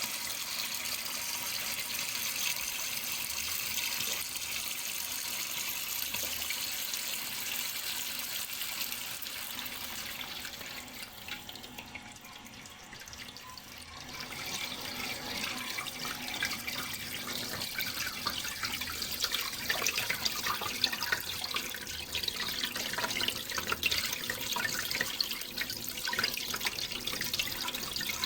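Running water splashing and trickling steadily; it softens for a few seconds a little before halfway, then comes back with more distinct splashes and drips.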